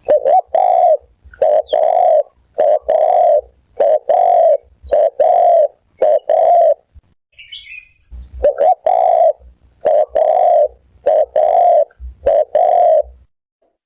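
Spotted dove cooing loudly: a long string of coos, each a short note run into a longer one, in two runs with a pause of about a second and a half in the middle.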